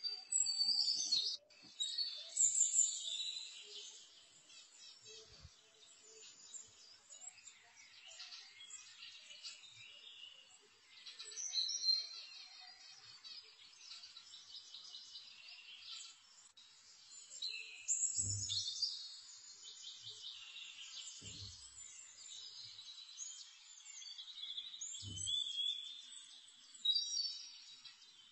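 Birds chirping and twittering in repeated high calls, with a few faint low knocks in the second half.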